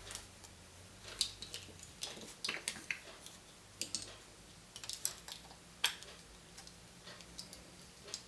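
Irregular small clicks and crinkles from hands handling surprise-egg packaging and plastic parts, with a sharper click about a second in and another near six seconds.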